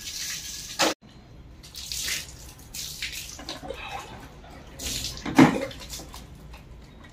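Water poured from a plastic mug over a shampooed Lhasa Apso to rinse off the lather, splashing off its wet coat onto a concrete floor. It comes in several separate pours, the loudest a little past the middle.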